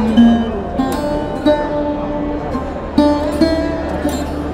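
Music of plucked string notes, struck one after another and each ringing briefly, over a steady low hum.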